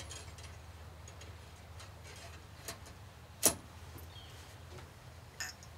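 Scattered light clicks and taps from handling a muzzleloader rifle during reloading, with one sharp click about three and a half seconds in.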